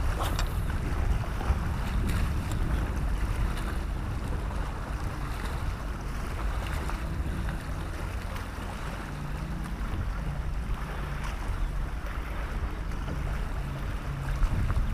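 Steady wind noise on the microphone, with choppy lake water lapping against a fishing kayak's hull. A faint low hum comes and goes in the second half.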